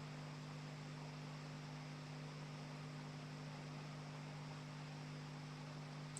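Steady low electrical hum with a faint even hiss: the background noise of the recording setup.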